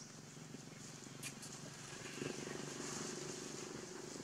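Faint outdoor background: a steady low hum that swells slightly about two seconds in, under a high hiss, with a single click about a second in.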